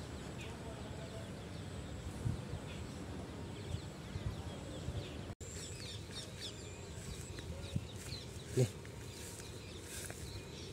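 Outdoor ambience: a steady low rumble with birds chirping faintly, the chirps more frequent in the second half. The sound cuts out for an instant about halfway, and there is a single soft thump near the end.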